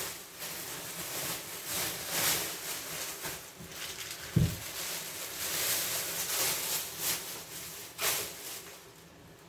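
Thin plastic grocery bags rustling and crinkling as they are handled and lifted, with a low thump about four and a half seconds in.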